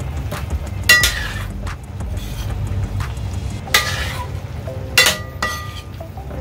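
A metal spoon stirring chicken pieces in a stainless steel pan, scraping and clinking against the pan, with several sharp clinks that ring briefly. A steady low hum runs underneath.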